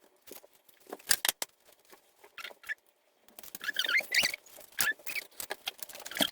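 Wire whisk clicking and scraping against a mixing bowl as molasses, softened butter, egg and vanilla are whisked together, in irregular taps with a brief squeak about four seconds in.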